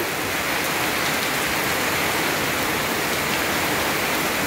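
Heavy rain pouring steadily onto corrugated metal roofs and running off their eaves.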